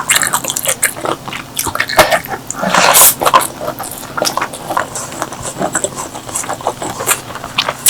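Close-miked mukbang eating sounds: wet chewing and mouth smacks in quick, irregular clicks, with a louder noisy burst about three seconds in.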